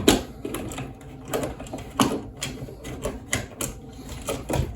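Irregular small clicks and taps of hand tools and wires being handled at an electrical switch box, several sharp ones spread unevenly through the few seconds.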